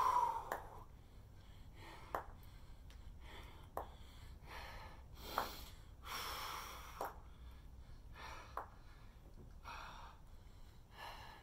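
A man's hard breathing from exertion during bent-over rows: short, noisy exhales and inhales, one every second or so.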